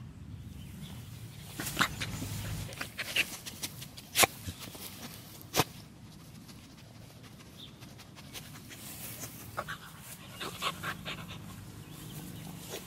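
A lemon beagle sniffing, snorting and panting with its nose in the grass, with a few sharp snorts standing out, the loudest about four seconds in.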